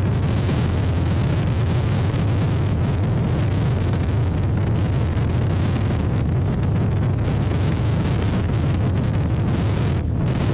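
Strong wind buffeting an outdoor webcam microphone: a loud, steady low rumble and rush that flutters with the gusts.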